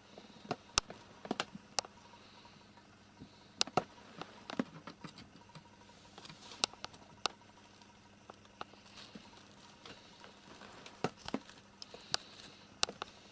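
Kittens scampering and playing, their paws and claws making scattered, irregular light taps and clicks on a parquet floor and rug.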